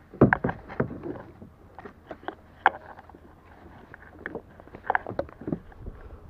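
Irregular knocks and clatters on a plastic sit-on-top fishing kayak's hull and fittings, loudest in a cluster about a second in, with scattered single knocks after.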